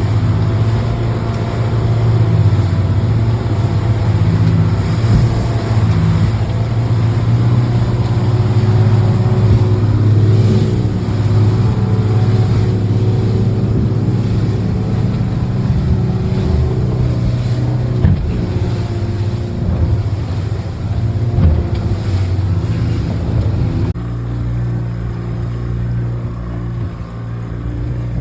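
Boat engine running steadily, a low hum with wind buffeting the microphone; it eases off a little near the end.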